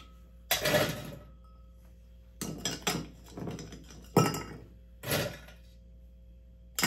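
Ice being scooped with a metal scoop from a stainless-steel ice bucket and tipped into a glass mixing glass: the cubes clatter against metal and glass in about five separate bursts, the loudest just past the middle.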